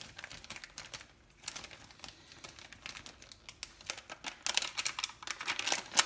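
A clear plastic zip-lock freezer bag being pulled open and handled, making quick crinkling and clicking sounds, with a louder, denser run of crackling near the end.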